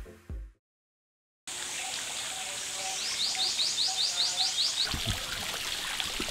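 Water pouring from a stone lion-head wall fountain, a steady trickling splash that starts about a second and a half in. In the middle a bird calls a quick run of about ten short high notes.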